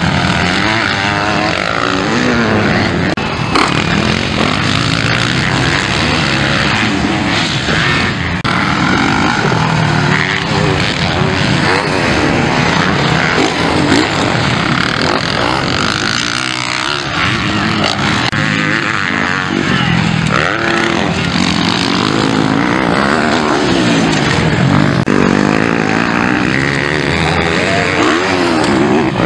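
Several motocross bikes racing on a dirt track, their engines revving hard and falling away in overlapping rising and falling notes as they pass.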